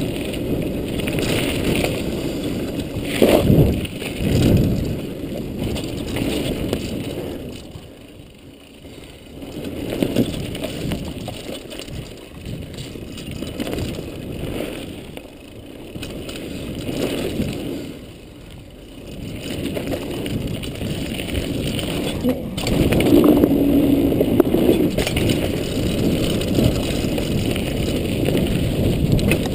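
Mountain bike riding downhill on a dirt trail: knobby tyres rumbling over dirt, wind buffeting the microphone, and knocks and rattles from the bike over bumps. The noise eases off twice and gets louder again near the end.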